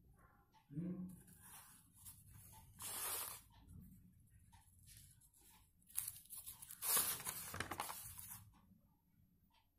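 Sheets of a printed paper question booklet rustling as they are handled and turned. One short burst comes about three seconds in, and a longer, louder one follows from about six to eight and a half seconds.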